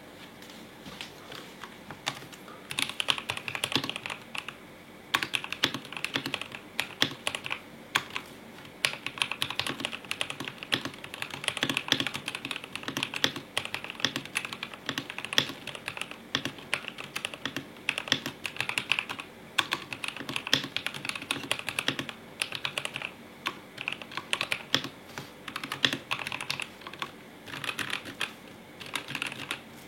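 Typing on a Rover 84 v3 gasket-mount mechanical keyboard with Gateron Yellow linear switches, PBT Cherry-profile keycaps, a polycarbonate plate and case and plate foam: fast runs of keystrokes in bursts with short pauses between them.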